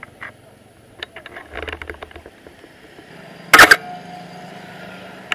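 Canon A1 35 mm SLR firing its shutter: one sharp double click of mirror and shutter a little over three seconds in, after some soft handling rustle.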